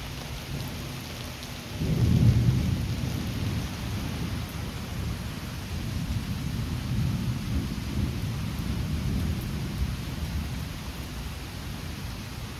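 Thunder over steady rain: a low rumble starts suddenly about two seconds in, is loudest for about a second, then rolls on for several seconds and slowly fades.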